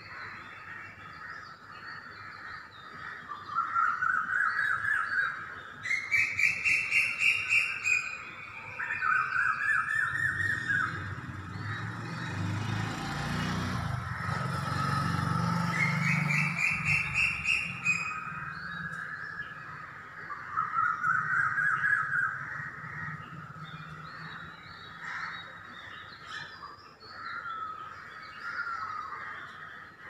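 Birds calling: repeated bursts of rapid, pulsing calls that rise and fall in pitch, five or so times, over a steady background of bird chatter. A low rumble swells and fades in the middle.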